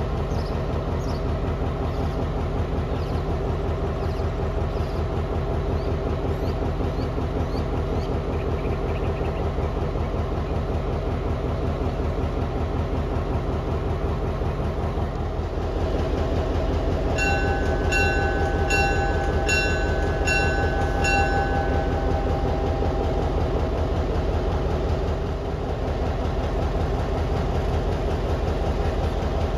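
Diesel-electric locomotives idling, their engines running with a steady low drone; the engine note rises about halfway through and eases back near the end. A bell rings about six times in quick succession a little past the middle, and birds chirp early on.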